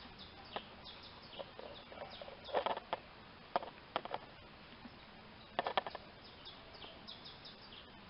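Small birds chirping: many short, high, downward-sliding cheeps, broken by louder bursts of quick clicks about two and a half, three and a half, four and five and a half seconds in.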